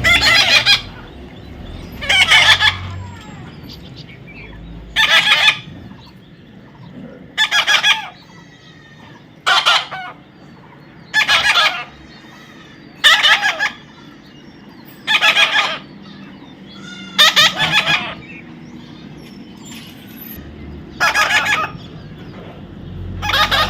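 A young parrot giving loud, harsh calls, about eleven of them, roughly one every two seconds, each about half a second long.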